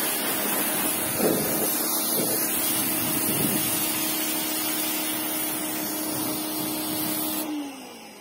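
Electric pressure washer running, its motor humming steadily while the jet sprays water onto a quad bike; near the end the motor cuts off and its hum falls away in pitch.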